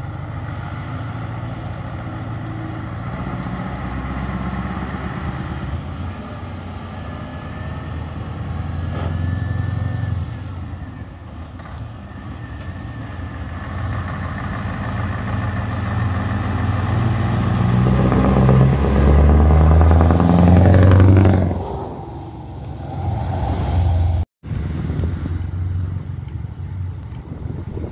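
Scania V8 truck engine with an open, straight-piped exhaust, coming closer and passing by. It grows louder to its loudest about two-thirds of the way through, then fades as it goes by. The engine note drops off sharply twice along the way.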